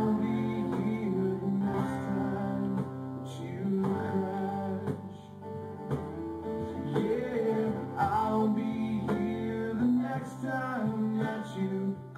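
Live acoustic rock performance: acoustic guitar strummed with a man singing lead over the band.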